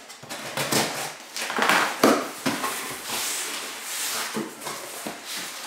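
Cardboard box being handled: irregular rustling, scraping and tapping of the packaging, with a louder knock about two seconds in.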